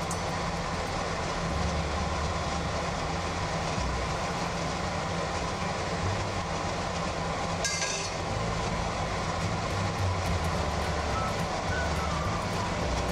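Dal vadas deep-frying in hot oil, a steady sizzle over a low rumble, with a brief clink about 8 seconds in.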